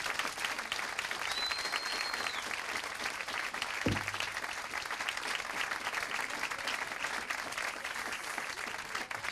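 Audience applauding steadily, with a brief high steady tone about a second in and a single low thump about four seconds in.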